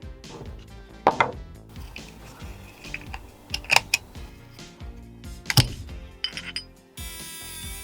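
Sharp metal clinks and knocks, some single and some in quick pairs, from an old rusty padlock being handled and worked on, over background music. Near the end a steady whirring sets in.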